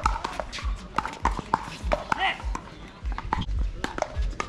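Irregular sharp taps and deep thumps of play on a court, several a second, with a brief shoe squeak about two seconds in and voices in the background.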